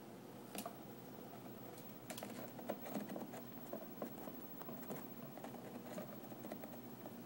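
Faint, irregular tapping and scratching of a cockatiel moving about inside a cardboard box, its claws and beak on the cardboard, busier from about two seconds in.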